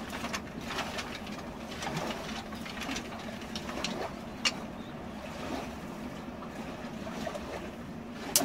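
Dry twigs snapping as they are broken by hand to feed a small campfire: scattered sharp snaps, a distinct one about four and a half seconds in and the loudest near the end, over the steady rush of a river.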